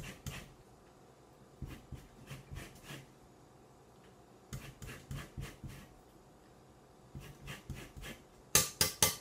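An orange rubbed against a rasp-style zester, grating off the peel in groups of short rasping strokes with pauses between, the loudest few strokes near the end.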